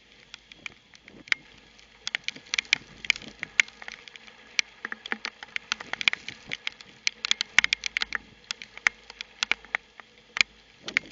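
Rain pattering close to the security camera's microphone in a severe thunderstorm: many sharp, irregular ticks of drops striking, several a second.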